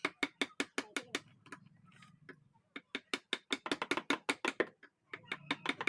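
Rapid, even taps of a mallet on a carving chisel cutting a design into a wooden door, about six strikes a second, with a pause of about a second partway through.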